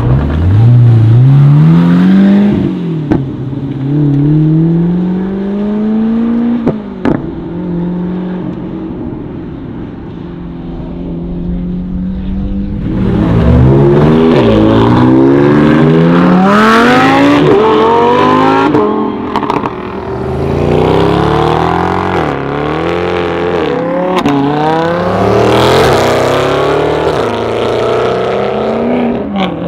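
Supercar engines accelerating hard: the pitch climbs through the revs and drops back at each upshift, over and over. About halfway through, more engines join in, overlapping as the cars pull away. A couple of sharp cracks come early on.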